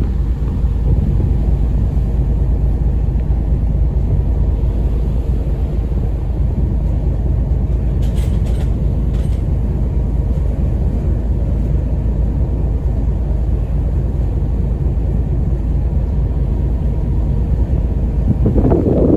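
Ferry's engine running with a steady low rumble while under way. Wind buffets the microphone near the end.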